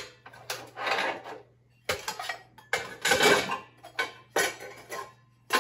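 Old metal hardware and tools being handled and set down on a hard surface: a string of clanks and clatters with scraping between them, the loudest clatter a little past halfway.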